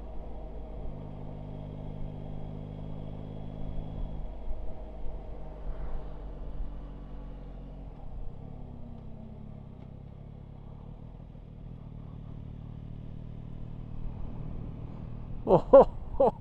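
Yamaha Tracer 9 GT's inline three-cylinder engine running steadily while riding, heard from on the bike. About eight seconds in the engine note falls in pitch as the bike slows, then settles back to a steady note.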